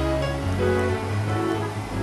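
Music: sustained melody notes over a bass line that changes note about every half second.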